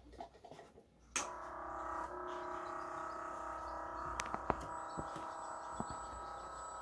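Small 12-volt electric oil transfer pump switching on about a second in and running steadily with an even, multi-toned hum as it pumps oil through a half-inch hose into the engine. A few light clicks come over it around the middle.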